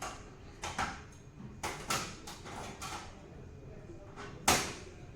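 Scattered clicks and knocks of computer parts being handled and set into a PC case, the loudest knock about four and a half seconds in.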